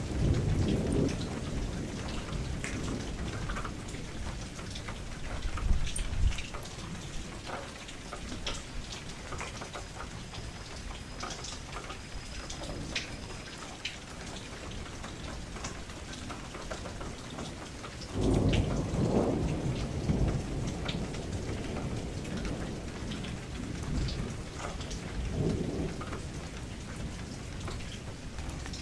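Steady rain falling against a window, with several low rumbles of thunder; the loudest rolls in about two-thirds of the way through.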